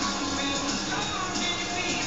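Music from a television programme playing through the TV's speaker.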